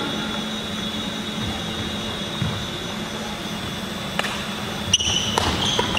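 Steady background hum of a sports hall. About four seconds in, a badminton rally starts: a few sharp racket-on-shuttlecock hits and short squeaks of shoes on the wooden court floor.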